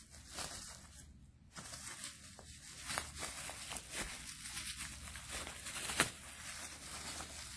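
Bubble wrap crinkling and crackling as it is pulled and peeled off by hand, with packing tape being torn away. There are many small crackles and a few sharper snaps, the loudest about six seconds in, and a short lull about a second in.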